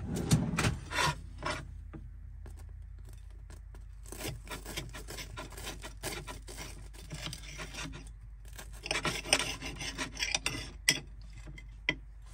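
Table knife sawing back and forth through a crisp, charred toasted sandwich on a plate, the blade rasping on the crust in repeated short strokes.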